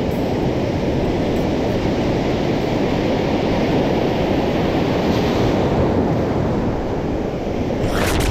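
Steady wind noise on the microphone over surf on the beach, a dense low rumble throughout. A brief sharp sound comes near the end.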